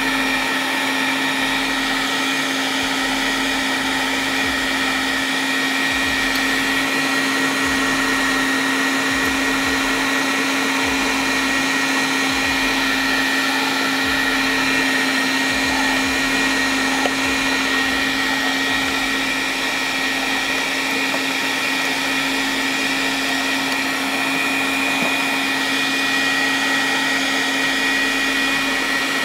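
Starwind SMG-5550 electric meat grinder running steadily under load, stuffing minced meat through its sausage attachment into a casing. The motor gives a constant hum with a thin, steady high whine above it.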